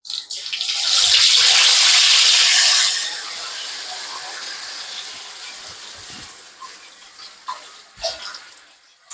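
A whole tilapia (jilebi fish) frying in hot oil: a loud sizzle that swells over the first few seconds, then dies down to a quieter, steady frying hiss. There are a couple of light knocks near the end.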